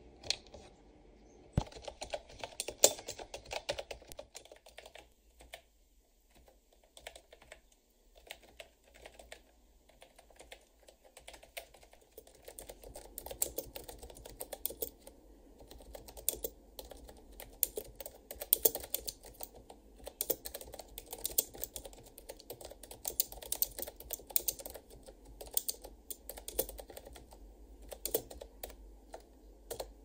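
Typing on a Mofii Sweet wireless keyboard with round typewriter-style keycaps: clicking keystrokes, sparse and intermittent at first, then a steady stream of rapid typing from about the middle on.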